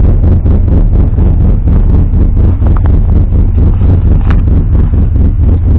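Cammed Chevrolet Silverado engine idling loud and uneven in its first minutes after a cold start. The aftermarket camshaft gives the idle its lope. Wind on the microphone roughens the sound, and there is a brief click about four seconds in.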